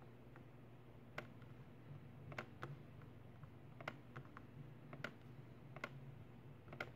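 Faint, scattered computer clicks, about seven sharp ones, over a low steady hum.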